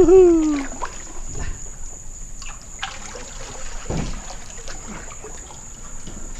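Water trickling and sloshing around a kayak paddled with a single-bladed canoe paddle, with a few light knocks. It opens on the end of a loud, long pitched tone that slides down and stops within the first second.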